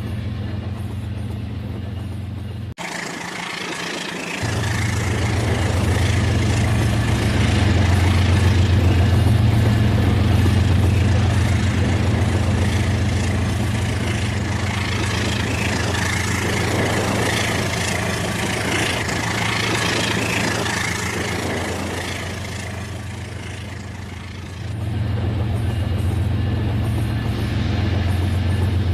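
Battery-powered Rail King toy train running on its track: a steady whirring of its motor and wheels over a low hum, with a louder rattling layer that cuts in about three seconds in and fades away shortly before the end.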